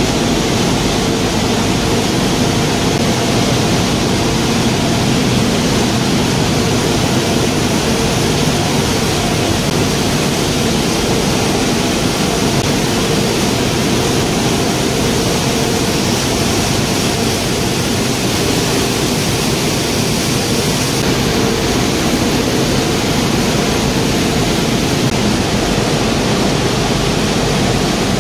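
Waste tire rubber powder production line running: a steady, loud mechanical din from its shredding and grinding machines and conveyors, with a faint low hum underneath.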